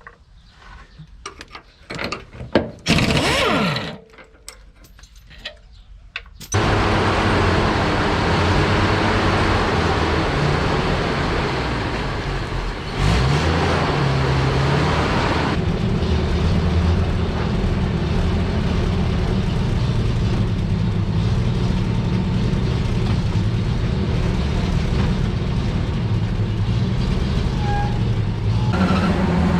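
Scattered metallic clinks of spanners on bolts, with one louder noisy burst. Then, about six seconds in, a heavy engine starts running steadily and loud. It revs up briefly about halfway through, as it would under load while lifting.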